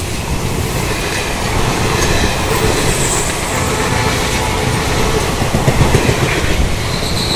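Indian Railways passenger coaches passing close at speed: a loud, steady rush of wheels running on the rails, swelling briefly about six seconds in.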